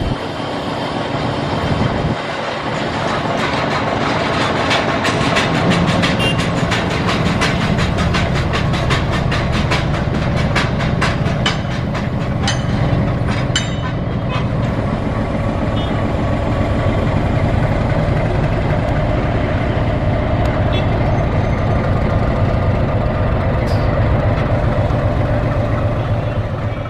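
X-class metre-gauge steam train running by with a steady rumble, and a fast run of clicks from about four seconds in until about fourteen seconds in.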